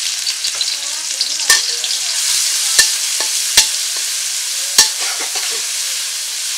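Sliced onions sizzling loudly in hot oil in a large metal karahi, with a metal spatula stirring and striking the pan in four sharp clinks.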